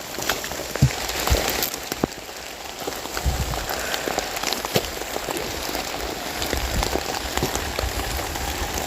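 Rain falling steadily, with many sharp individual drops hitting close by.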